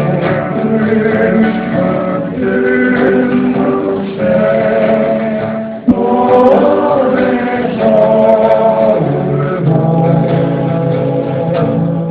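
Live music: several voices singing together in harmony, holding long notes.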